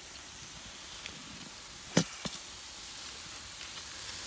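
Pork skewers sizzling faintly on a charcoal kettle grill while being basted with sauce, a steady hiss. A sharp knock about two seconds in, followed by a lighter one.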